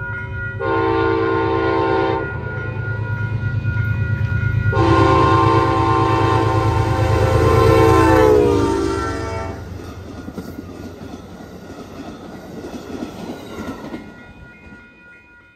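Amtrak diesel locomotive sounding its multi-note horn twice: a short blast, then a longer one whose pitch drops near its end as the engine passes, over the locomotive's low rumble. The passenger cars then roll by on the rails, fading away.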